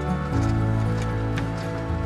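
Background music: sustained chords over a low bass line, the chord changing about a third of a second in.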